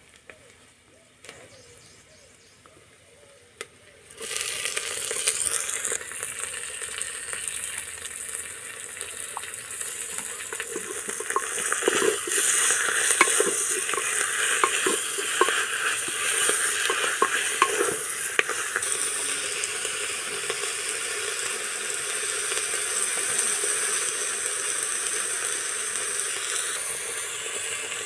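Steamed spinach frying in a pressure-cooker pot: a loud sizzle starts suddenly about four seconds in and keeps going, with a run of clicks from the ladle against the pot as it is stirred around the middle.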